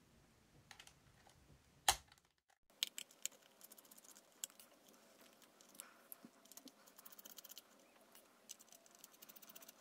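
Faint clicks and ticks of a precision screwdriver turning the tiny screws in a Panasonic portable MiniDisc player's metal casing, with the player being handled. There is one sharper click about two seconds in and a quick run of ticks near the end.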